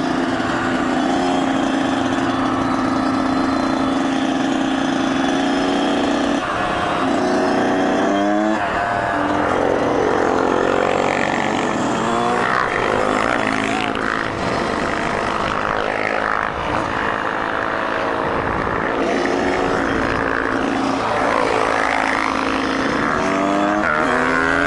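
Kawasaki KX100 two-stroke dirt bike engine running under way, holding a steady pitch for the first six seconds or so, then revving up and down repeatedly, with a strong rising rev near the end.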